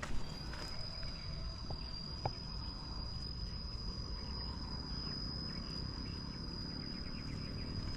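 An insect, such as a cricket, calling in one steady, unbroken high-pitched trill, with a couple of faint clicks early on.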